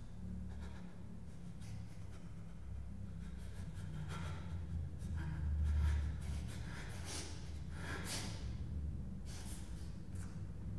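A man breathing heavily, with several quiet uneven breaths and sniffs from about four seconds in, over a low steady hum.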